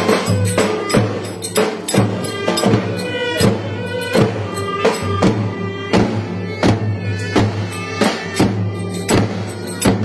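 Davul bass drums beating a steady dance rhythm with clarinets playing a Turkish folk melody over it.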